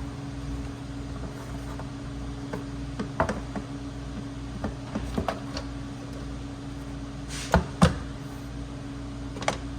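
Plastic engine cover being handled and set back in place: scattered light knocks and clicks, with two sharper clicks close together about seven and a half seconds in, over a steady low hum.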